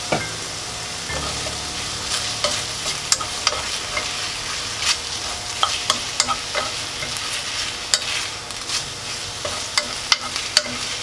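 Rice cakes, beef, onion and shiitake mushrooms being stir-fried with a wooden spoon in a hot frying pan, just seasoned with soy sauce: a steady sizzle with frequent sharp clicks and scrapes of the spoon against the pan.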